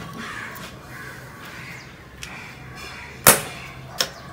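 Sharp snap about three seconds in, and a smaller click just under a second later, as the cable lug of the final connection meets a terminal on a bank of lead-acid batteries. A small spark at this last connection is normal. Under it runs a faint steady hum.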